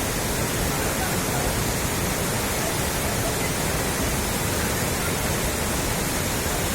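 Steady, even rush of swollen floodwater.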